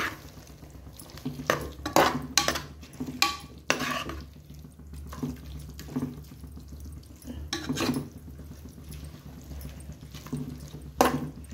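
Metal ladle stirring and scraping thick, wet prawn masala in a metal pressure cooker pot, mixing in mint-coriander paste: irregular wet scrapes and clinks against the pot. A steady low hum runs underneath.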